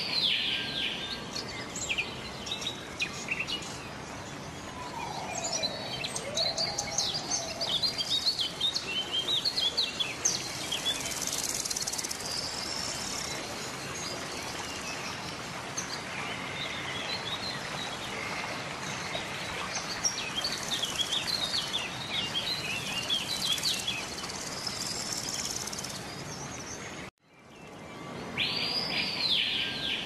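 Birds sing and chirp with many short calls and trills over a steady hiss of rushing water. Near the end the sound cuts out for a moment and fades back in, and the same birdsong starts over.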